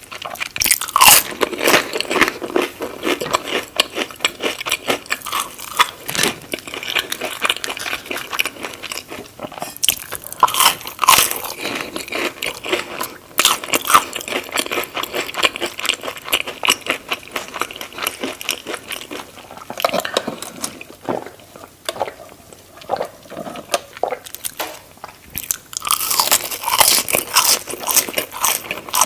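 Close-miked eating: repeated crunchy bites and rapid crackling chewing of crisp food. The chewing eases off for a few seconds past the middle, then turns loud and crunchy again near the end.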